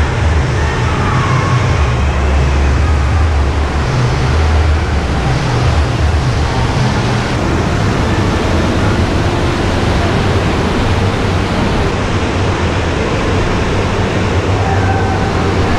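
Steady rush of water and the echoing din of a large indoor waterpark hall, with a heavy low rumble underneath.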